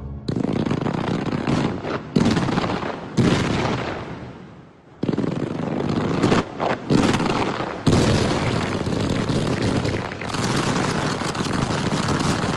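Fireworks going off in a series of sudden loud bursts, about seven in all. Each burst is followed by a sustained rushing, crackling noise.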